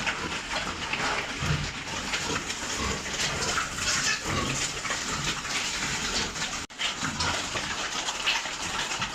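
Pigs grunting over a steady rush of running water, cut off briefly once near the two-thirds mark.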